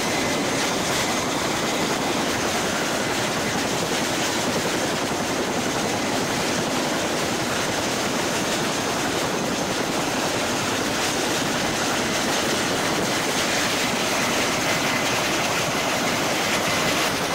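Helicopter in flight: a loud, steady roar of engine and rotor noise that holds unchanged throughout.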